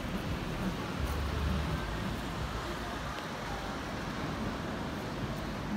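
Road traffic noise on a wet street: a steady hiss of passing cars, with a low rumble that swells about a second in.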